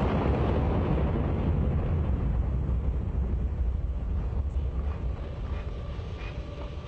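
Ares I first-stage five-segment solid rocket motor firing on a static test stand: a deep rumble that steadily fades as the burn tails off toward burnout.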